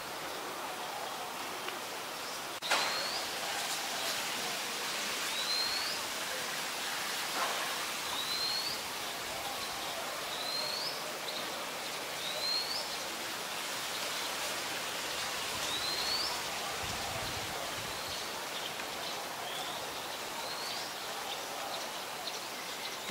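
A bird repeating a short, high, rising call about every two seconds over a steady background hiss, with one sharp click about two and a half seconds in.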